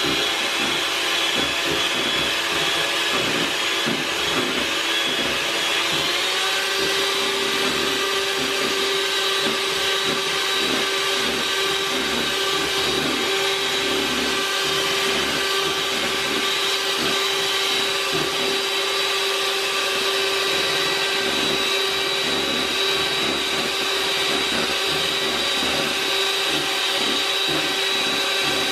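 Electric hand mixer (Hamilton Beach) running steadily, its beaters whipping instant coffee, sugar and hot water into a thick meringue-like foam. The motor whine steps up slightly in pitch about six seconds in.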